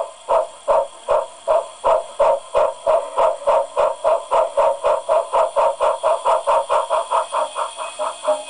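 Steam locomotive exhaust chuffs from a SoundTraxx Micro Tsunami model-railway sound decoder, set to a light steam engine, playing through a small speaker in a lead sheet enclosure. The chuffs run in an even beat of about five a second, with a smooth, deep tone.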